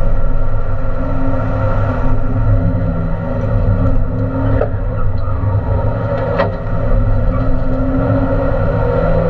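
Renault Clio RS Trophy engine and road noise heard inside the cabin, running at speed with fairly steady revs. Two short clicks come about four and a half and six and a half seconds in.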